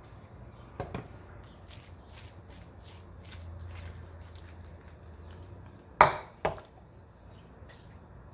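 Kitchen handling noises as bowls and a metal spoon are moved about on a stone countertop: faint taps and clicks, then two sharp knocks about half a second apart around six seconds in.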